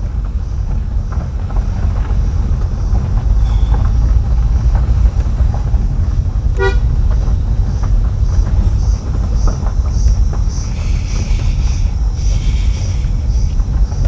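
Car driving slowly over a broken tarmac road, heard from inside the cabin: a steady low rumble of engine and tyres. A single short toot about six and a half seconds in.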